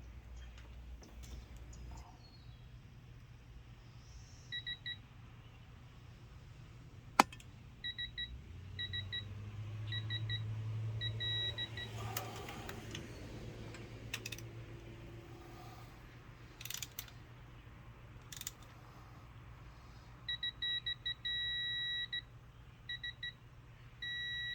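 Digital torque wrench beeping as cylinder head bolts are tightened: several bursts of short beeps, then a longer held beep near the end as the set torque is reached. A single sharp click about seven seconds in.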